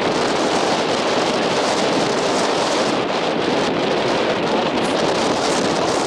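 Strong gusting wind blowing across the camera microphone: a steady, loud rushing noise.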